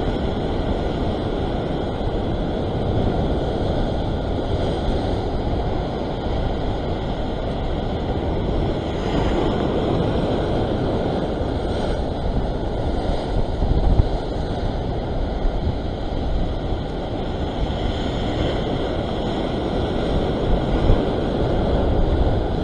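Rough surf breaking and churning in white water, a steady rush, with wind buffeting the microphone.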